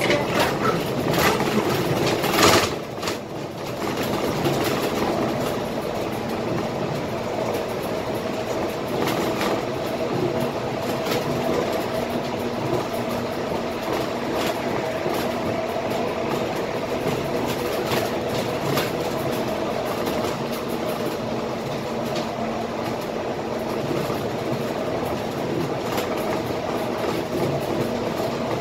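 Cabin noise of a Scania K320IA city bus under way: steady engine and road noise with a steady hum, and clicks and rattles from the body now and then. A louder knock comes about two and a half seconds in.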